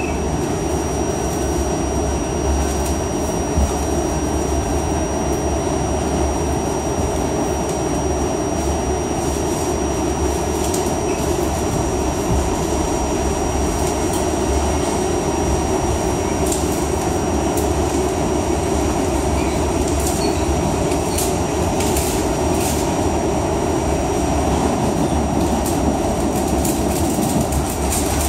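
Interior of an R68A subway car running along the track: a steady, loud rumble of wheels and running gear, with a thin steady high whine over it and a few sharp clicks near the middle and toward the end.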